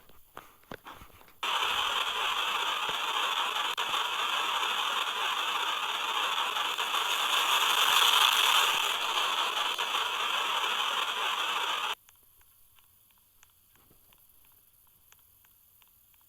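Steady rushing hiss with no clear pitch, lasting about ten seconds. It starts and stops abruptly and swells slightly just past the middle.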